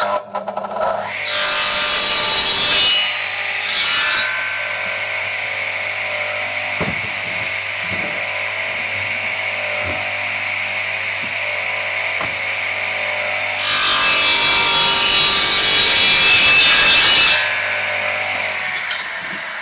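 Circular saw bench starting and running with a steady whine, cutting pine boards to square their ends. There is a cut about a second in, a brief one around four seconds, and a longer cut from about fourteen to seventeen seconds, with light knocks of wood being positioned in between.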